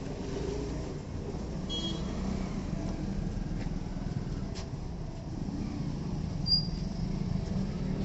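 Steady low rumble of street traffic, with a short high chirp about six and a half seconds in.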